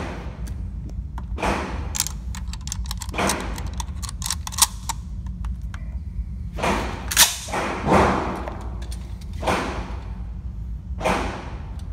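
Gunshots ringing in an indoor shooting range, about seven spread irregularly through the stretch, with small metallic clicks of rifle handling in between.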